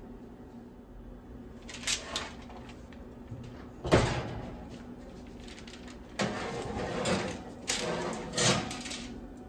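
Metal baking tray being handled and slid into an electric oven: a couple of light clatters, a sharp clank about four seconds in as the tray is picked up, then a stretch of scraping and knocking over the last few seconds as the tray goes onto the oven rack.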